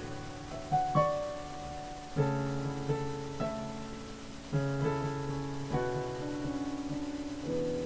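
Upright piano played slowly: chords struck every second or so and left to ring and fade, with single higher melody notes over them.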